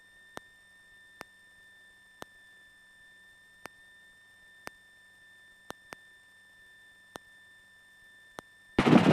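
Faint steady electrical whine of several high tones on the helicopter's intercom audio, with sharp clicks about once a second. Near the end comes a loud burst of static in two short pieces, like a radio transmission keying in.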